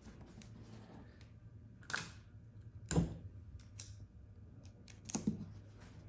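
Hands handling a template and tape on a hard plastic storage bin: light rubbing with scattered sharp taps and clicks, three louder knocks about two, three and five seconds in. A steady low hum runs underneath.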